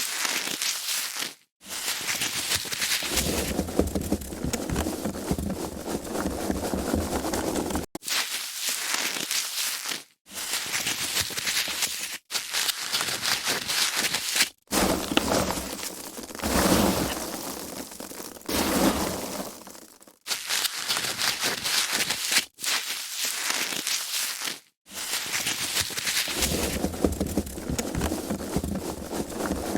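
Foam packaging being handled, squeezed and crinkled, in a string of takes a few seconds long, each cut off by a brief silent gap.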